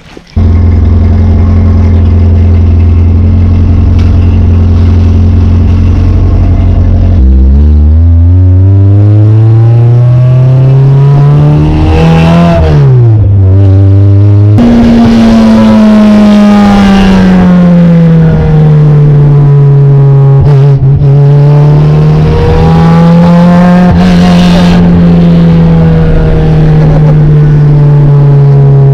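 Acura Integra GSR's 1.8-litre DOHC VTEC four-cylinder running loud through open headers with no exhaust behind them. It holds steady for about seven seconds, then the revs climb for several seconds, drop sharply, and after an abrupt change a little later rise and fall as the car is driven.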